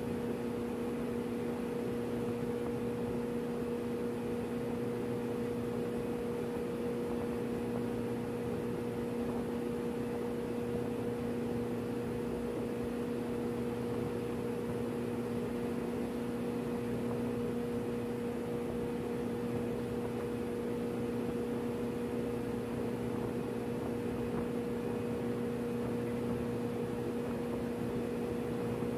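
Steady drone of running machinery aboard a ship: an unchanging hum with a fainter, higher hum above it and a hiss over both.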